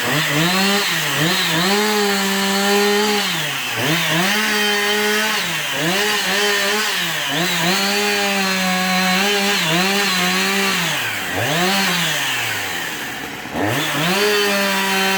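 Chainsaw engine at full throttle cutting through wood. Its pitch sags repeatedly as the chain loads up in the cut and then recovers. Near the end it drops lower for about a second before revving back up.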